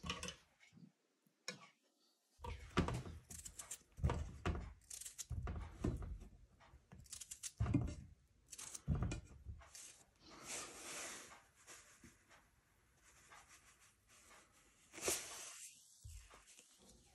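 Peeled potatoes being cut up and the pieces dropped into a cooking pot: a run of irregular knocks and thuds, with short scraping sounds in between.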